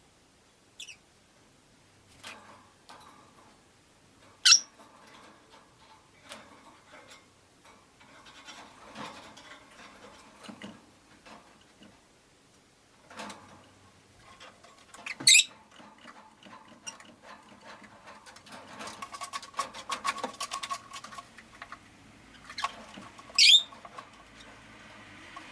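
Rosy-faced lovebirds in a cage: three loud, sharp, high-pitched chirps spaced several seconds apart, with soft clicks and rustling between them and a spell of rapid clicking about two-thirds of the way through.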